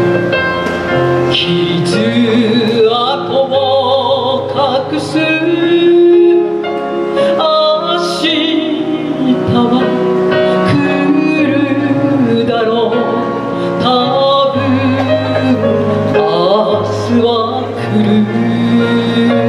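A woman singing a chanson live into a handheld microphone over instrumental accompaniment with a sustained bass line.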